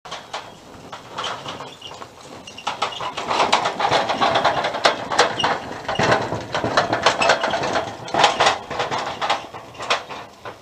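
Wheels of a Tramper off-road mobility scooter and the trailer it tows crunching over loose gravel and stones as they roll past, with many sharp stone clicks. It grows louder a couple of seconds in and fades near the end.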